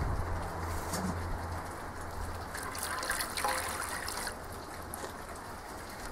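Water poured from a jug into a metal water tray sitting on the grill of a charcoal kettle barbecue, the stream running for a couple of seconds about midway.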